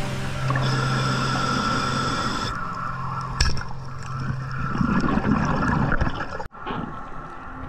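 Underwater water noise, swishing and gurgling, around a diver working a speargun over the reef. There is a sharp click about three and a half seconds in, and the sound briefly cuts out about six and a half seconds in.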